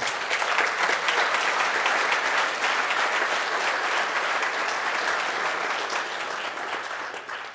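Audience applauding: dense, steady clapping from a large crowd that dies away quickly near the end.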